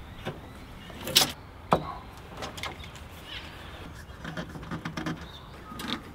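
Handling sounds at a workbench: two sharp clicks about a second in, then quieter knocks and scraping, with a bar clamp being fitted to the edge of a plywood sheet near the end.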